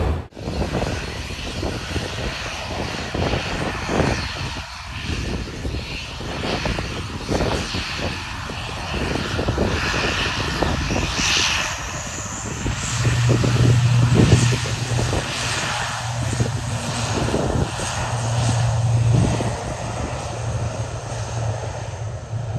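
Airliner jet engines running, a continuous rushing noise with a steady low hum coming in a little past halfway.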